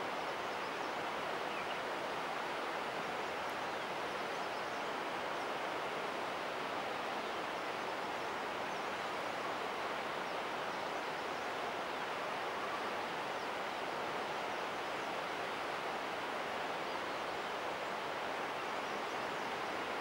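Steady, even rushing outdoor noise with no distinct bird calls standing out.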